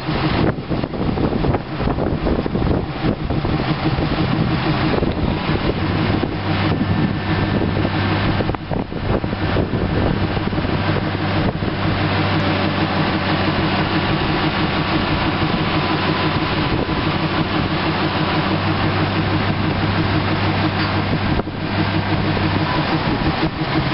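Heavy diesel equipment engine running steadily, its low note growing stronger about nine seconds in and easing back near the end.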